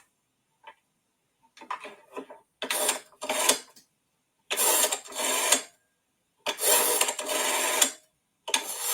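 Sound effect of a rotary dial telephone being dialed: a string of separate mechanical bursts as the dial is turned and runs back, a number of digits in turn, the last few longer.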